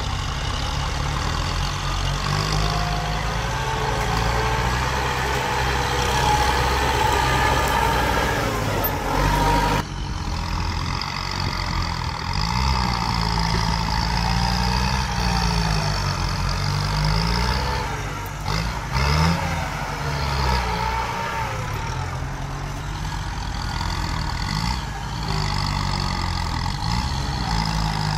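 Kubota M8540 tractor's diesel engine working under load as the tractor pushes and levels soil, its engine speed rising and falling again and again.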